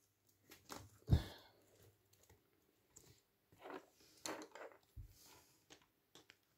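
A degu scurrying over sheets of paper on a desk, its feet making a few short, faint scratchy scuffs, with a dull knock about a second in.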